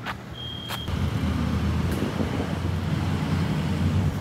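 Road traffic: a low vehicle rumble that swells about a second in and then holds steady. A brief high tone sounds near the start.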